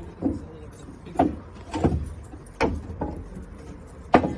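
A long wooden plank knocking and scraping against wooden deck boards as a dog wrestles with it, in a series of sharp knocks about a second apart, the loudest near the end.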